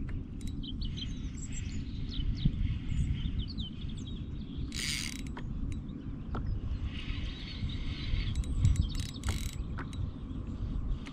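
Spinning reel being cranked, its gears whirring, with a brief rushing hiss about five seconds in. Small birds chirp over a steady low rumble of wind and handling noise.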